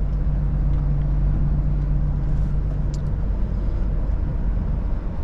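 Volvo FH 460 truck's 13-litre straight-six diesel and road noise while driving, a low steady drone whose note fades about three seconds in.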